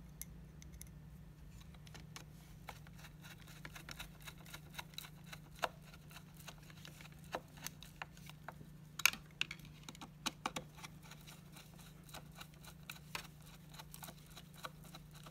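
Faint, irregular clicks and ticks of a hand Phillips screwdriver turning the hoverboard's battery screws and knocking against the plastic battery case, a few louder taps about two-thirds of the way through, over a steady low hum.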